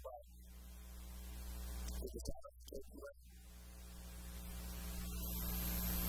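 Electronic keyboard holding sustained chords that swell louder, twice, over a steady low electrical hum, with a short stretch of a man's voice between the chords.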